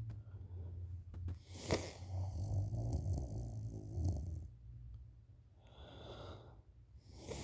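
A sleeping woman snoring with low, rattling snores, broken by a short sharp sound about a second and a half in. After a short lull, one breathy breath comes near the end.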